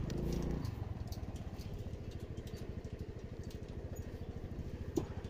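Motorcycle engine idling with a steady, fast, even putter. It is briefly louder in the first half-second, and there is a single sharp click near the end.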